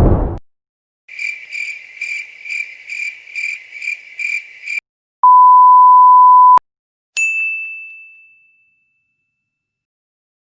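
A run of editing sound effects: a low boom dies away at the start, then crickets chirp in an even pulsing rhythm for about four seconds. Next comes a flat steady beep of just over a second, then a single bright ding that rings out and fades.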